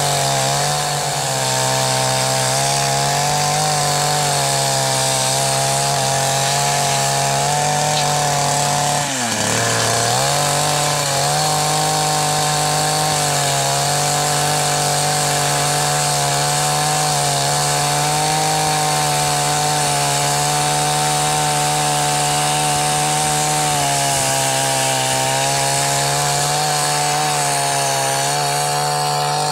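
Ogawa 16-inch two-stroke chainsaw running at full throttle while ripping along the length of a log, a steady high engine note. About nine seconds in the engine pitch drops sharply under the load and then climbs back.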